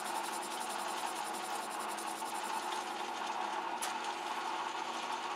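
Metal lathe running steadily while its tool cuts an aluminium pulley blank, an even machine hum.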